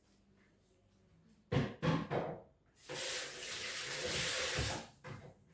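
A few quick knocks in the kitchen, then a water tap running for about two seconds before it is shut off.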